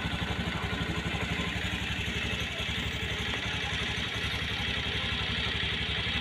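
An engine idling steadily, with a rapid, even low thudding.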